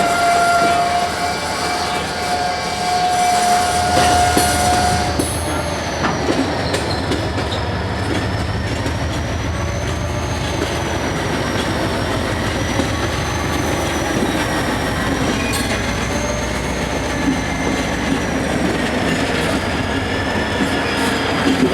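A train moving through the yard behind an EMD GP20 diesel locomotive. A steady high tone stops about five seconds in. Then a low engine throb runs on under a thin, wavering wheel squeal.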